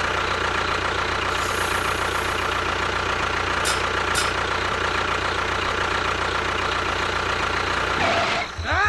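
An engine running steadily at idle with a constant whine, stopping about eight seconds in.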